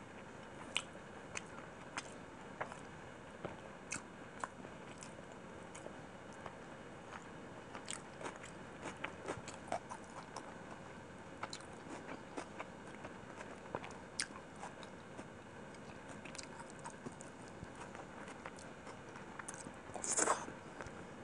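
Close-miked chewing and biting of chicken biryani eaten by hand, with many short, sharp mouth clicks and smacks. About twenty seconds in, as fingers go to the mouth, there is a louder, longer mouth sound.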